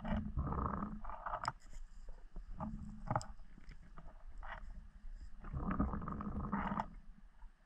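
Muffled underwater rumbling and sloshing from a spearfisherman moving through the water, heard through the camera's waterproof housing. It comes in irregular surges of half a second to over a second, with a few sharp knocks of gear.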